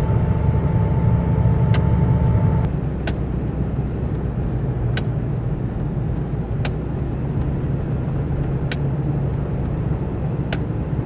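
Hummer H3 driving slowly, heard from inside the cab: a steady low road and engine rumble with a sharp tick every couple of seconds. A steady high whine stops abruptly about two and a half seconds in, where the rumble also drops a little.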